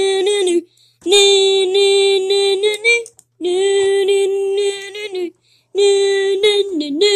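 A high voice chanting in a sing-song on one held pitch, in four long drawn-out phrases with short breaks between them, cheering someone on.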